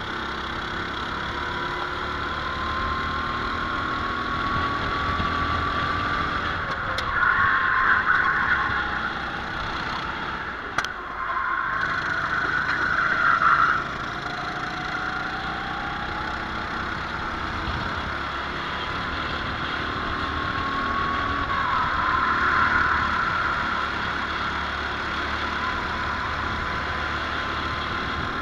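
Racing kart's engine running continuously, its pitch climbing slowly as it accelerates and dropping back several times as it slows for corners. Two louder stretches of rushing noise come about a third of the way and halfway through.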